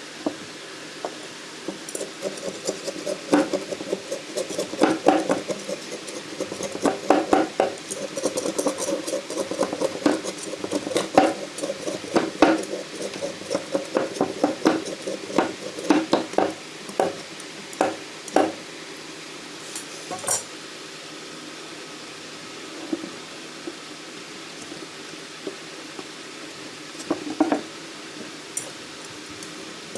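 Metal parts clinking and knocking against each other in an irregular run of sharp taps, thinning out about two-thirds of the way through.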